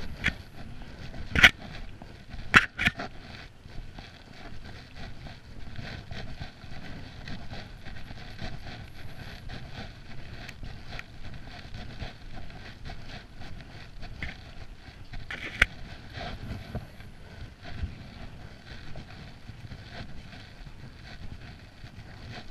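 Steady outdoor rumble with wind on the microphone and the faint steps of someone walking on wet paving. A few sharp clicks stand out, three close together near the start and one more about two-thirds of the way through.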